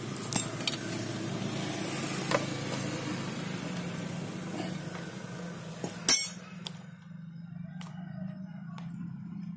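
Metal hand tools clinking against a motorcycle engine: a few light clicks early on and one sharp, ringing clink about six seconds in, over a steady low hum.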